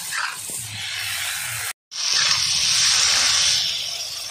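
Yam pieces frying in spiced oil in a hot cast-iron kadai, sizzling as a spatula turns them. After a brief cut, water poured into the hot pan sets off a loud steam hiss that eases after a second or two.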